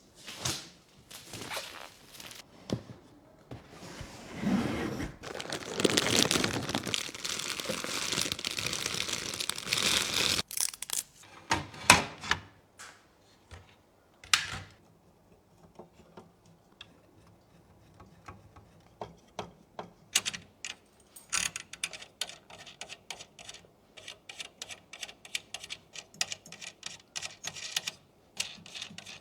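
Handling of PC parts and packaging: several seconds of plastic or paper packaging rustling and tearing, then scattered sharp clicks. Near the end comes a quick run of small clicks and taps.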